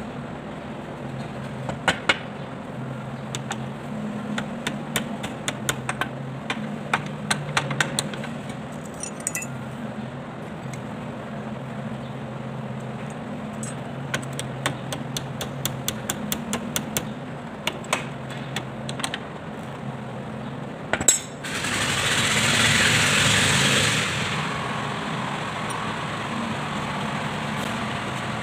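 Hammer blows on a steel bar held against the front axle spindle of a Kubota L2201 tractor: a long run of sharp metallic taps and clinks, with one heavier knock, as the seal on the spindle is driven. Near the end a hissing noise rises for about two seconds over a steady low hum.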